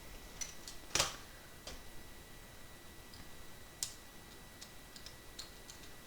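Scattered small metal clicks and ticks of tools and loose pins being worked inside a disassembled dimple lock's housing, with a sharper click about a second in and another near the four-second mark.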